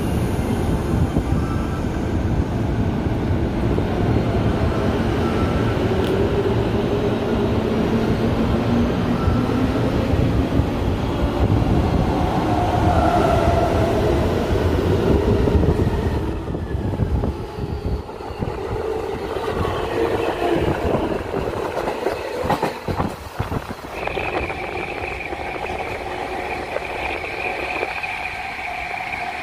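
JNR 185 series electric train running, heard through an open window with heavy wind and rolling noise. Its motor whine rises in pitch during the first half as it gathers speed. A run of sharp rail-joint clicks follows, then a steady high whine near the end.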